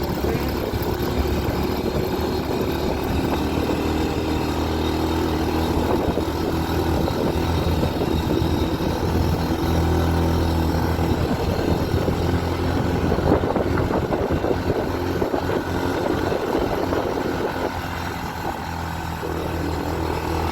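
Motorcycle engine pulling steadily under load on a steep uphill climb. It eases off briefly near the end, then picks up again.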